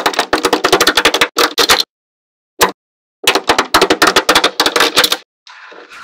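Small magnetic balls clicking and snapping together in rapid runs of sharp clicks, in several quick bursts with short silent pauses between. Near the end a softer, steady scraping sound takes over.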